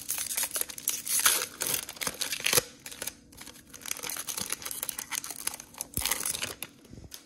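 Foil wrapper of a Prizm Draft Picks football card pack torn open and crinkled by hand: a quick run of crackles, loudest in the first two and a half seconds.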